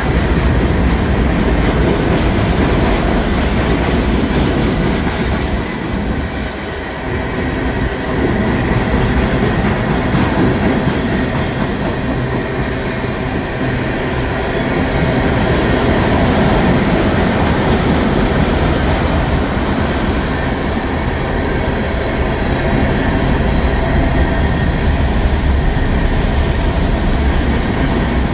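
Union Pacific manifest freight train rolling past: a loud, steady rumble of freight cars' wheels on the rails, dipping briefly about six seconds in.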